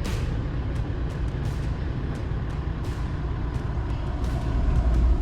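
Toyota LandCruiser Troop Carrier driving on a rough 4x4 track: a steady low rumble of engine and road noise with scattered knocks and rattles, growing louder near the end.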